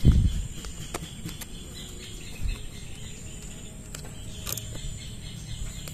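Plastic toy train track pieces handled and fitted together: a low knock at the start, then a few light clicks and knocks. Steady insect chirring, like crickets, runs underneath.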